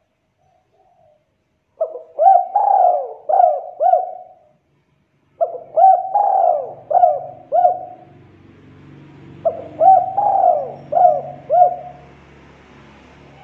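Spotted dove cooing: three phrases of four or five short coos each, a couple of seconds apart.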